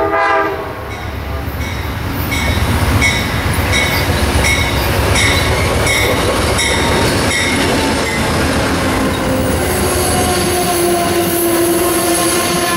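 An Amtrak passenger train led by a Genesis P42DC diesel locomotive passes close by at speed. The tail of a horn blast ends at the start, the locomotive's bell rings a little under twice a second as it approaches, then the passenger cars rumble past with a sustained wheel squeal.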